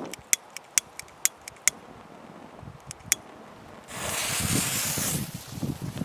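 A run of sharp, irregular clicks, then two more, then a hiss lasting just over a second about four seconds in, as of a lighter being struck and a firework fuse catching.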